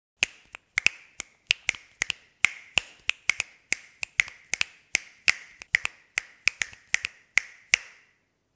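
Keys clicking in an uneven typing rhythm, about three sharp clicks a second, some in quick pairs, each with a short ring.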